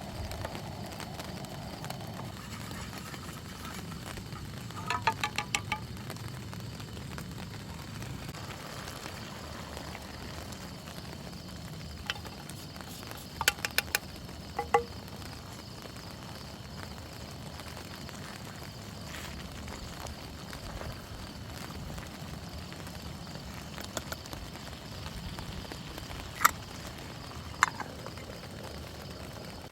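Steady camp ambience of rain and campfire, with a few groups of sharp, briefly ringing clinks from cooking gear: a cluster about five seconds in, several more around the middle, and two near the end.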